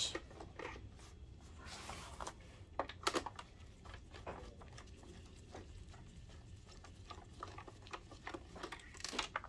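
Quiet handling sounds of a plastic projector case: a scrape as it is turned on the cardboard-covered bench about two seconds in, then a few light clicks and knocks, the loudest about three seconds in. Near the end, a small screwdriver works at a screw in the case.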